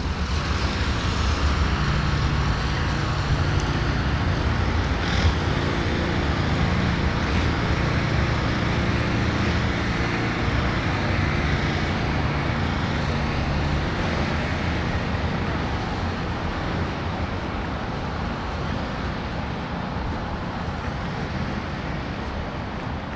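City street traffic: a steady wash of passing cars and engines, with a low engine hum through the first half that slowly fades. A single sharp click about five seconds in.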